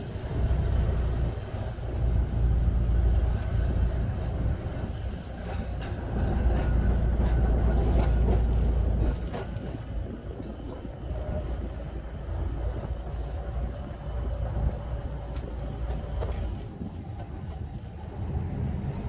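Double-decker heritage tram running along the rails, its steady running noise heard from the upper deck with occasional clicks. Wind buffets the smartphone microphone, hardest in the first few seconds and again from about six to nine seconds in.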